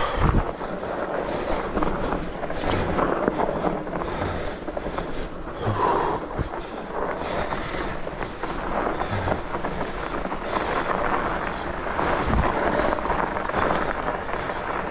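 Norco fat bike rolling over snowy singletrack: a steady crunch and rumble of the wide tyres on snow, mixed with wind on the microphone, and a few dull thumps as the bike hits bumps.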